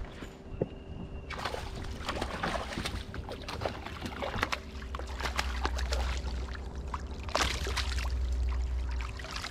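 Water splashing and sloshing in dense, irregular crackles, with a low rumble over the second half.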